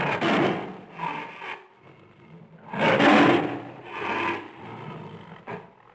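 Lion roaring: two long roars, the second about three seconds in and the loudest, each followed by a shorter call, with a brief grunt near the end.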